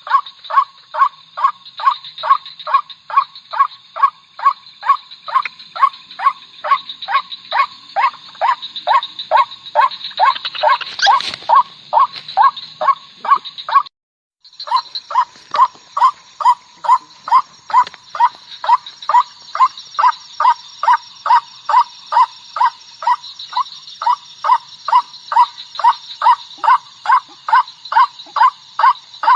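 White-breasted waterhen's call: one monotonous note repeated a little over twice a second, steady throughout, as used for luring the bird. The calling breaks off for a moment about halfway, then resumes at the same pace.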